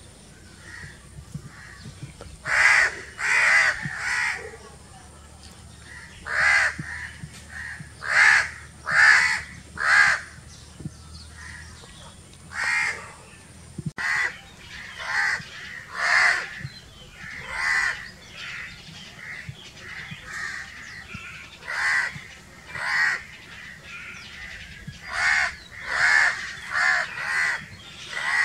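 House crows cawing over and over: short, harsh caws, often two or three in quick succession, from several birds in turn.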